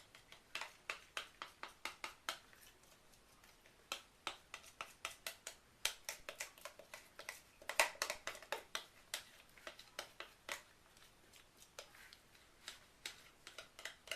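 Quick light taps and scrapes of a hand tool against a container or mould while soap batter is worked, coming two to four a second in runs with short pauses.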